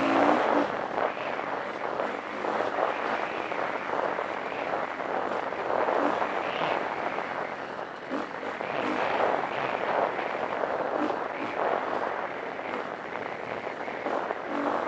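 KTM 350 EXC four-stroke single-cylinder dirt bike engine running under load on a trail, largely buried under a steady noisy rush of wind and riding noise on a helmet-mounted microphone. The engine's pitch shows through plainly just after the start and again near the end.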